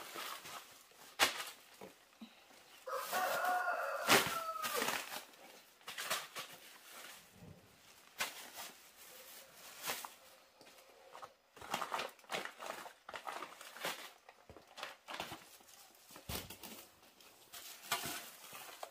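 A rooster crows once, about three seconds in, a drawn-out call that falls away at the end. Around it, plastic bags crinkle and rustle as they are handled and packed into a plastic basket.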